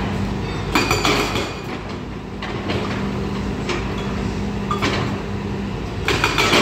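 Volvo excavator's diesel engine running steadily under load, with repeated clattering knocks of the bucket on stones, in several bunches, the loudest near the end.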